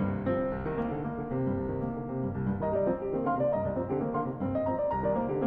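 Classical piano music, a slow passage of held notes, added as a soundtrack.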